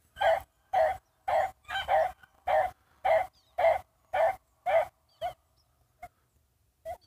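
A rabbit hound barking in a steady run of about two barks a second, the hunting dog giving voice out of sight in the cover. The barking breaks off about five seconds in, with two fainter barks after.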